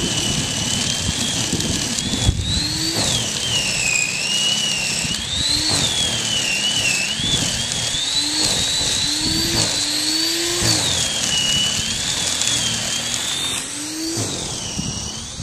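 Corded electric snow thrower running, its motor whine rising and falling in pitch as the auger takes in snow and throws it out the chute. It gets a little quieter near the end.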